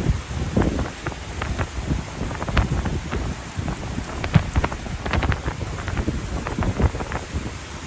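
Heavy rain pouring down in a sudden downpour, with gusting wind rumbling on the microphone and irregular sharp drops striking close by.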